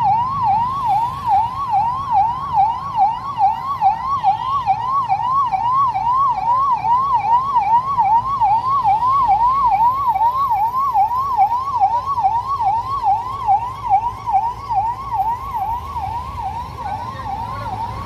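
Police vehicle siren wailing in a fast yelp, rising and falling about twice a second without a break, over a low rumble of vehicle engines.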